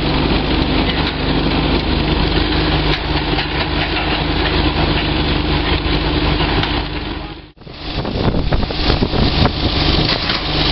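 Heavy diesel engines of a Case IH tracked tractor and an excavator running steadily. The sound drops out suddenly for a moment about seven and a half seconds in, then the engines resume.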